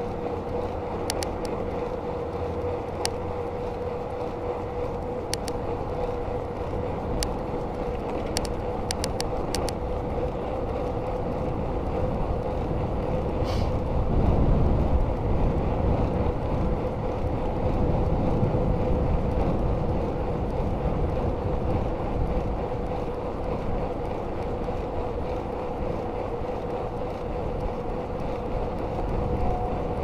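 1997 Giant Iguana mountain bike ridden at speed on a paved road: steady wind rush and tyre noise with a constant hum. A few light ticks come in the first ten seconds, and the rushing grows louder from about fourteen to twenty seconds in.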